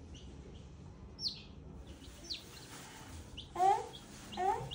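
Baby chicks peeping: a few scattered high, falling peeps, then two short, louder rising squeals near the end.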